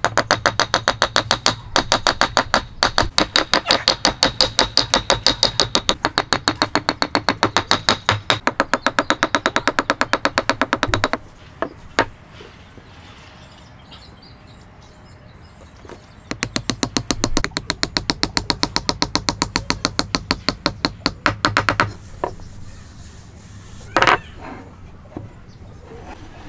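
Rapid, even hammer taps on wooden joint parts: a long run of taps, a pause, then a second shorter run that drives the hardwood locking peg home. One sharp knock comes near the end.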